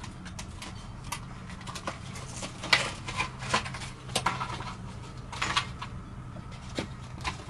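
Scattered light clicks and clinks of small metal pump parts and tools being handled, loudest in the middle, over a steady low hum.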